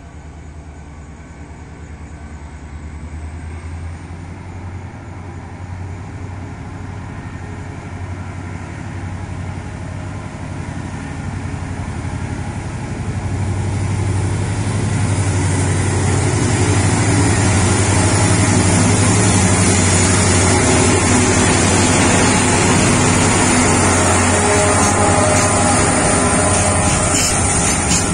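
A GM/EMD GT26CW-2 type diesel-electric locomotive with a 16-cylinder two-stroke EMD 645 engine approaching with a long freight train, its low steady engine drone growing louder for about fifteen seconds and then staying loud as the train passes close by with the rumble of its wagons.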